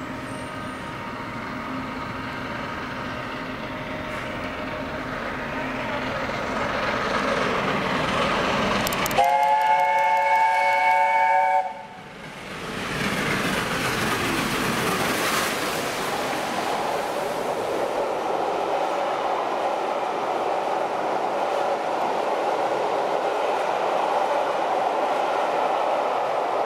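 LNER A4 steam locomotive 60009 Union of South Africa approaching at speed, its train noise growing steadily louder, then sounding its chime whistle, a chord of several notes held for about two and a half seconds about nine seconds in, which cuts off abruptly. Then the locomotive and its coaches run past with continuous wheel and rail noise.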